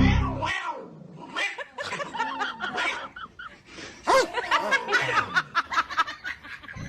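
People laughing and giggling, with a quick run of rapid laughs from about four seconds in. A short low thud comes right at the start.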